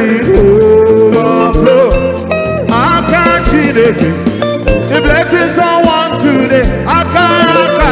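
Live gospel praise music: a band playing with a steady drum beat, and a singer on microphone over it.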